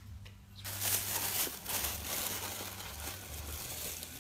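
Paper wrapping crinkling and rustling as a model part is unwrapped by hand, starting about a second in and going on unevenly.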